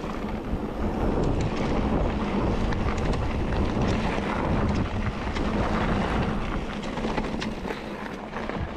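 Wind buffeting the microphone over the rumble of a mountain bike riding a rough trail, with scattered clicks and rattles.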